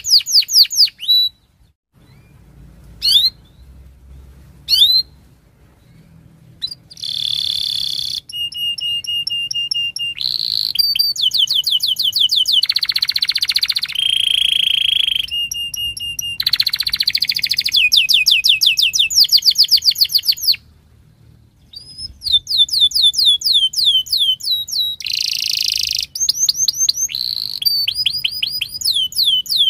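Domestic canary singing. A trill ends, then there is a brief pause with two single chirps. From about a quarter of the way in comes long continuous song: rapid rolling trills of quick down-sweeping notes, alternating with buzzy passages and held whistled notes. The song pauses briefly about two-thirds through, then resumes.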